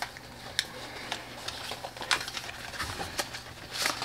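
A cardboard headphone box being opened and handled: scattered light clicks and taps over faint rustling of packaging.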